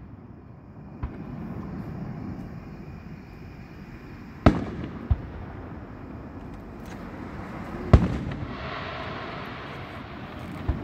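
Aerial fireworks bursting: two loud booms about three and a half seconds apart, with three fainter pops around them. Each bang trails off in a rolling echo, and a rushing, hissing noise follows the second boom.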